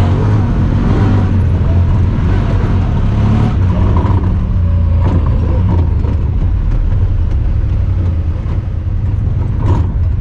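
Honda Talon 1000R side-by-side's parallel-twin engine running steadily while driving, with a few sharp knocks over it, the clearest near the end.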